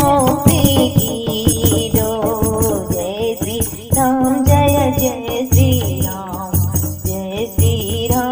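Devotional bhajan kirtan music: a melody line over repeated drum beats, with continuous jingling, rattling percussion.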